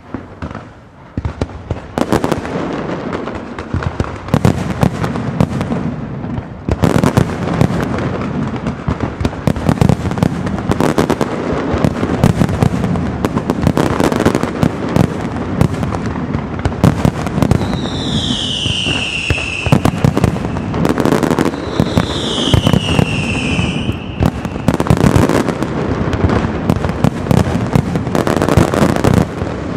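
Castillo aerial fireworks display: a dense, continuous barrage of shell bursts and crackling reports that fills in after the first couple of seconds. Two falling whistles sound about two-thirds of the way through.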